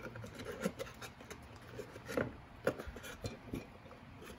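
A rigid cardboard gift box being handled: its paperboard parts slide and rub against each other, with scattered soft taps and knocks.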